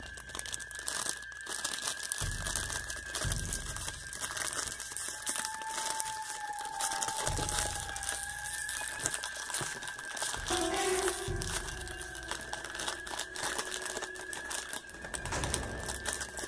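Crinkling of foil-lined plastic ice-cream wrappers being handled, a dense run of irregular small crackles, over a faint steady high tone.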